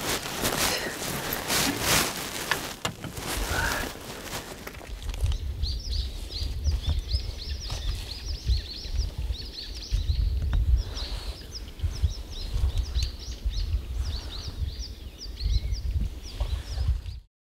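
Water splashing and sloshing as a landing net is worked at the water's edge for about five seconds. Then come many small birds chirping in quick, high, repeated calls over a low rumble. The sound cuts off abruptly just before the end.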